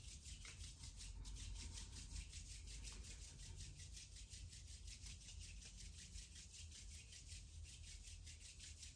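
Palms of the hands rubbing against each other: a faint, steady rubbing.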